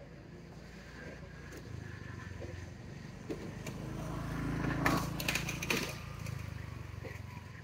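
Low engine hum of a passing vehicle that swells to its loudest about five seconds in and then fades, with a few sharp clicks near the peak.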